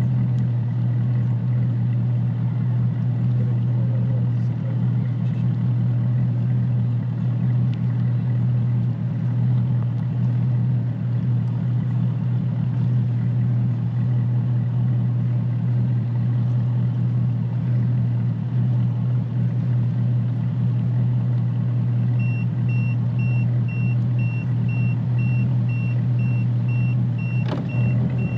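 A boat's outboard motor runs steadily at a constant speed, with a strong low hum. In the last several seconds a faint high electronic beep repeats about twice a second.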